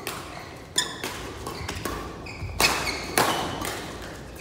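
Badminton rally: about three sharp racket strikes on a shuttlecock, with brief high squeaks of shoes on the court floor between them.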